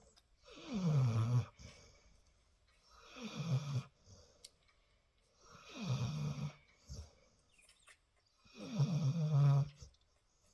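Sleeping Labrador Retriever snoring: four long snores about two and a half seconds apart, each sliding down in pitch.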